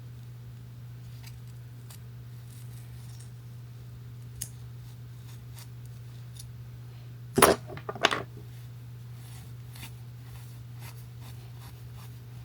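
Small clicks and rustles of hair and styling tools being handled, with a brief louder clatter of two or three knocks about seven and a half seconds in. A steady low hum runs underneath.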